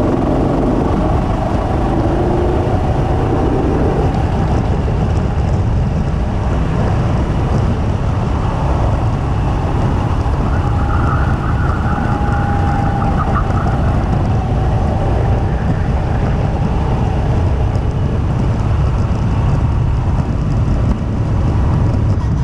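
Two-seater go-kart running steadily at speed, heard from on board the kart. A higher whine joins in for a few seconds about halfway through.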